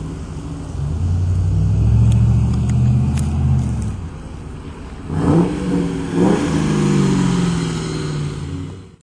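2000 Ford Mustang GT's 4.6-litre V8 through an SLP Loudmouth exhaust, accelerating past with a rising then falling note. It then gives two sharp surges of revs about a second apart and settles into a steady run. The sound cuts off abruptly just before the end.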